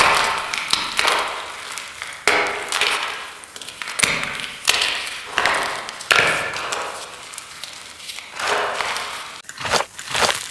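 Blocks of fresh gym chalk being crushed in the hand: a series of crunches, about one a second, each trailed by an added echo that fades away.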